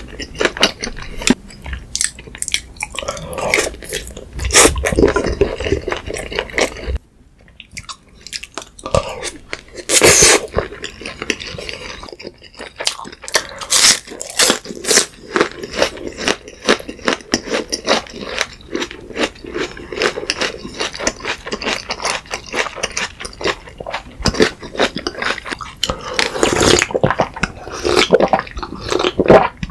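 Close-miked chewing, crunching and wet mouth sounds of someone eating, made of many quick clicks and crackles, with a short pause about seven seconds in. Near the end come swallows of water.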